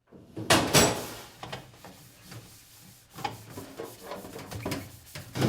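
Kitchen clatter: a string of sharp knocks and clinks, the two loudest about half a second and a second in, then smaller, irregular ones.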